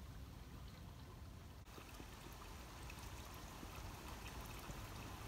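Faint, steady rushing outdoor ambience, with a brief dropout about a second and a half in.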